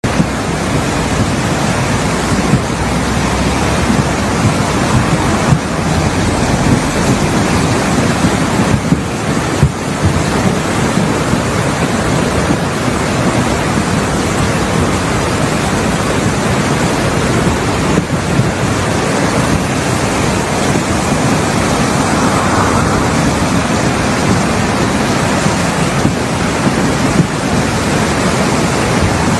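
A swollen river in spate after heavy rain, high water rushing steadily.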